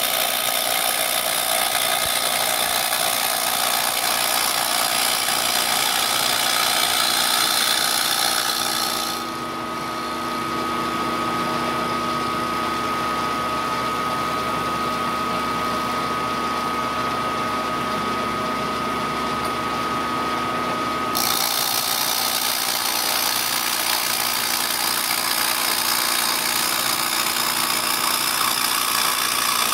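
Milling machine end mill cutting a plastic block: a steady hiss of cutting over the spindle's whine. About nine seconds in, the cutting hiss drops away for some twelve seconds, leaving the spindle's steady whine, then the cut resumes.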